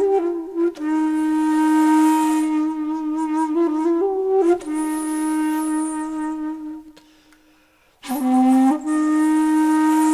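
Background music: a flute playing slow, long held notes that shift in pitch every second or two. It breaks off briefly about seven seconds in, then picks up again.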